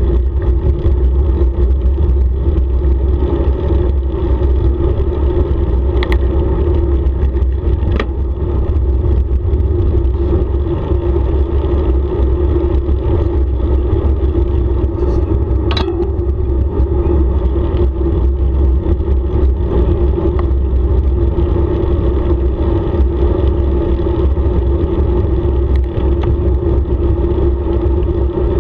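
Wind buffeting the microphone of a bicycle-mounted camera on a fast downhill run, with a steady hum from the tyres rolling on asphalt. Three sharp clicks stand out, the loudest about halfway through.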